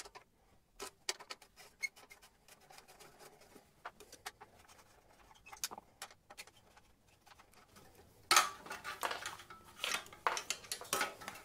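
Light metallic clicks and taps of an Allen key turning the bolts of a motorcycle exhaust heat shield. About eight seconds in comes louder scraping and rattling as the steel heat shield is worked off the exhaust pipe.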